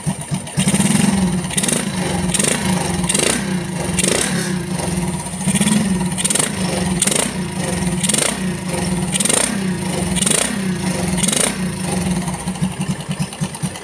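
Yamaha Vega R New's standard four-stroke single-cylinder engine, fitted with a CPO Cool Power PE24 carburettor, revved in quick throttle blips, about a dozen of them, one every three-quarters of a second or so, before falling back to idle near the end. The revving tests whether the carburettor runs normally on the stock engine, which the owner says it does.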